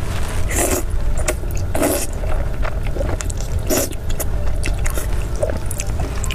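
Close-miked eating of noodles: three loud slurps, about half a second, two seconds and four seconds in, with wet chewing and small mouth clicks between them. A steady low rumble runs underneath.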